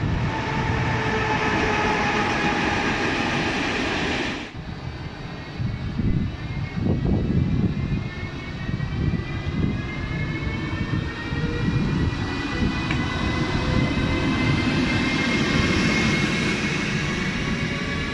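Siemens Vectron MS electric locomotive pulling away and passing close by, its traction equipment giving a whine of several tones that climbs steadily as it gathers speed over the rumble of the train. For the first four seconds or so, before a cut, another electric locomotive hums with a slowly falling tone.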